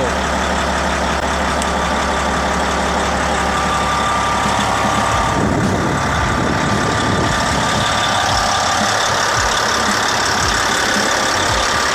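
Caterpillar D8T bulldozer's diesel engine idling with the cab air-conditioning blower on. About five seconds in the low hum changes to an uneven pulsing as the air-conditioning compressor comes on under load.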